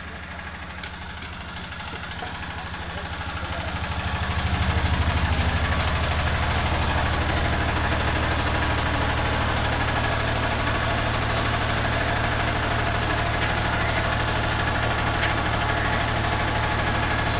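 Electric motor and gear drive of a steam-heated khoya kadhai's stirrer running with a steady low hum, growing louder over the first five seconds and then holding steady.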